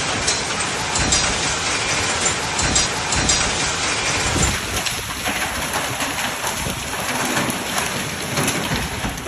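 Heavy rain pouring down, with many small sharp hits on surfaces throughout.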